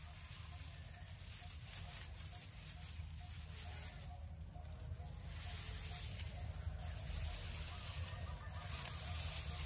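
Kubota rice combine harvester running steadily, its low engine rumble slowly getting louder. A faint squeak repeats about every half second.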